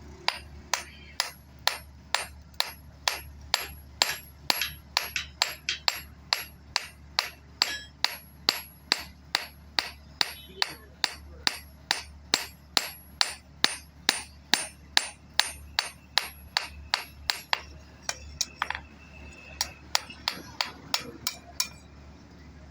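Hammer blows on metal at an anvil, forging a sickle blade: sharp ringing strikes at a steady pace of about two to three a second. Later the strikes come fewer and irregular, then stop shortly before the end.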